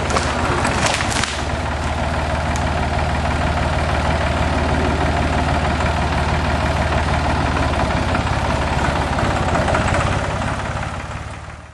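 Farm tractor engine running steadily, with a few sharp cracks in the first second or so. It fades away near the end.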